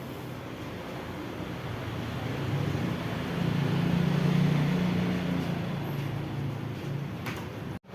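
Steady low hum over background noise, growing louder about three seconds in and easing off again by about six seconds. The sound drops out abruptly for a moment just before the end.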